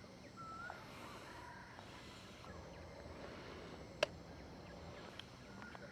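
Faint outdoor ambience with a short bird chirp in the first second and a single sharp click about four seconds in.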